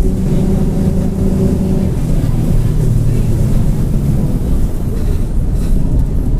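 Mercedes-Benz OF-1722M bus running under way, its diesel engine and drivetrain droning steadily, with the worn rear differential growling. The engine note changes about two seconds in.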